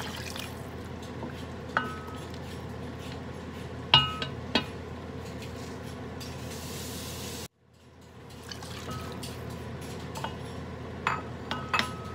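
Water poured into a stainless-steel pot of broth at the start, then a steady hiss of the heating broth with a few ringing clinks of a bowl and spoon against the pot. The sound cuts out briefly just past halfway and fades back in.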